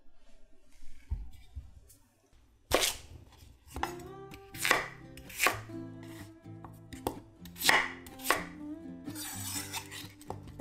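Kitchen knife cutting peeled raw potatoes into chunks on a wooden cutting board: a series of sharp chops at uneven intervals, starting about a quarter of the way in, over soft background music.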